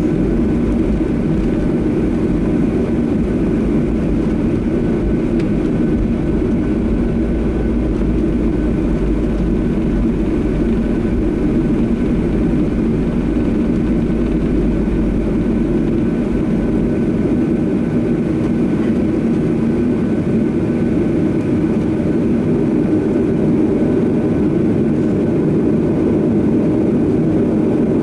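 Steady cabin noise inside a Boeing 737-800 on the ground: the hum of its CFM56 jet engines at low power mixed with air-conditioning hiss, with a faint steady whine above. A deep low rumble underneath drops away a little over halfway through.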